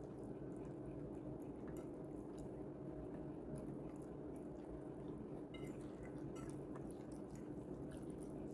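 A person chewing food, with small scattered clicks of a metal fork against a ceramic plate, over a steady low hum.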